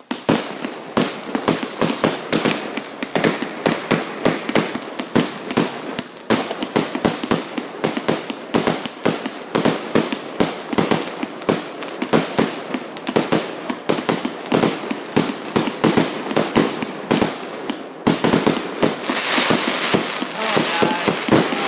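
Fireworks going off in a rapid, dense volley of bangs and pops, several a second, starting abruptly. Near the end a crackling hiss joins the bangs.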